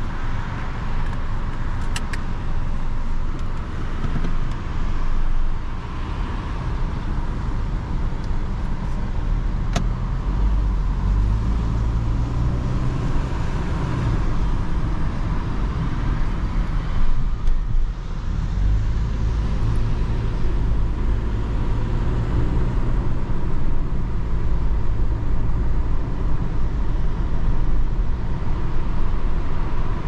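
Inside the cabin of a Ford EcoSport pulling away and accelerating: the 1.5-litre engine's drone climbs in pitch, drops off briefly a little past halfway, then climbs again over steady road and tyre noise.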